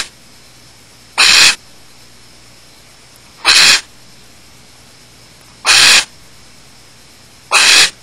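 Barn owls giving short rasping hisses at a steady pace, about every two seconds, four of them in a row.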